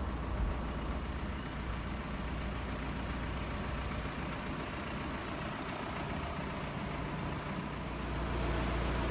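Steady low road rumble of a car driving, heard from inside the vehicle, growing a little louder near the end.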